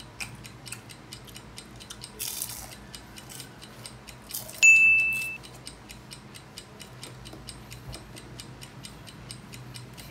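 Countdown timer ticking fast and evenly, about four ticks a second. A brief loud ding cuts in about four and a half seconds in.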